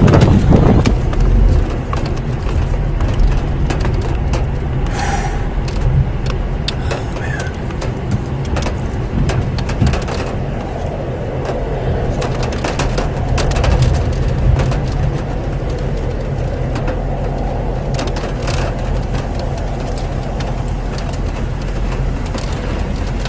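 Storm wind rumbling steadily on the microphone, with scattered sharp ticks throughout; loudest in the first second or two.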